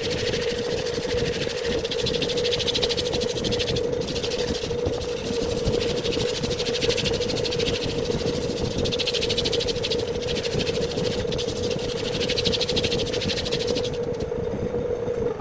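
Wood lathe running with a steady hum while a tool works the spinning wood, its scraping noise swelling and fading every few seconds. The hum breaks off at the very end.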